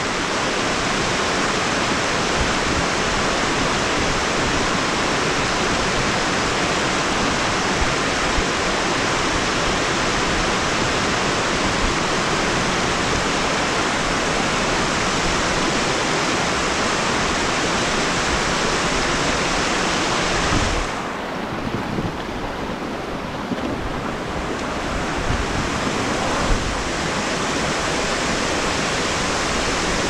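Mountain stream rushing over rocks in small cascades, a steady close rush of water. About two-thirds of the way through it turns quieter and duller for a few seconds, then comes back full.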